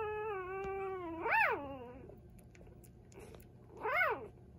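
Week-old puppy crying: a long, held whine, then a short squeal that rises and falls about a second and a half in, and another one near the end.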